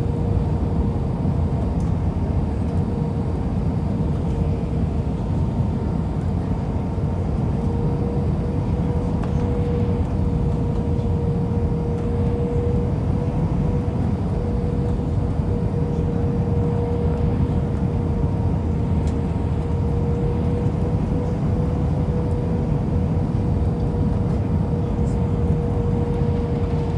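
Steady engine and airflow noise inside the passenger cabin of an Airbus A319 with CFM56 engines, a constant low rumble with a steady hum held at one pitch.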